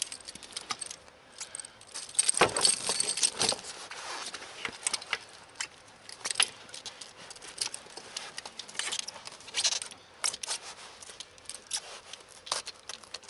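Steel snow-chain links of a Maggi Trak chain jangling and clinking irregularly as the chain is handled and laid around a car tyre, with a louder run of clinks a couple of seconds in.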